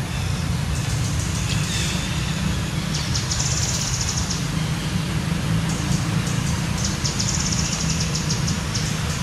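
Outdoor forest ambience: a steady low rumble, with two spells of fast, high-pitched insect buzzing, each lasting about a second, one in the middle and one towards the end.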